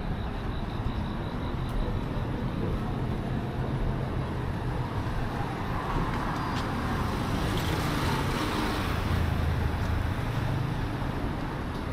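Road traffic: a steady low rumble, with a car passing close by, its tyre and engine noise swelling about halfway through and fading again near the end.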